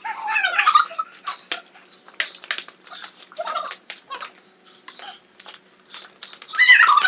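Girls squealing and giggling as they squirt each other with cold water from pump-action pressure sprayers, with many short, sharp spurts of spray in between. A loud shriek comes at the start and another near the end.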